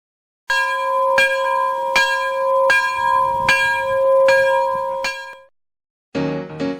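A bell struck over and over, about once every three-quarters of a second, over a steady ringing tone; it stops about five and a half seconds in. Piano music starts near the end.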